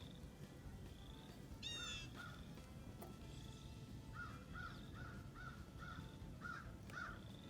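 Bird calls: a single sweeping call nearly two seconds in, then a quick run of short cawing calls, about two or three a second, through the second half. A fainter high chirp repeats steadily underneath.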